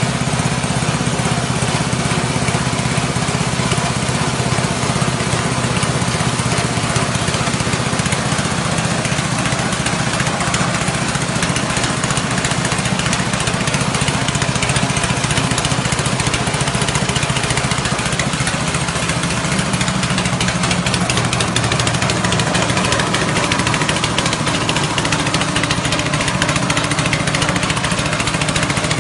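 Rice-husk grinding machine driven by a 6.5 hp petrol engine, running steadily under load while rice husk is milled into fine bran. Its steady engine hum sits under a dense, even grinding noise.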